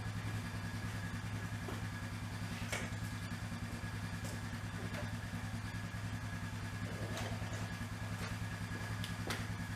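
Steady low motor hum with a fast even pulse. Over it come a few light, sharp clicks of hand tools working the screws on an old mower muffler's spark arrestor.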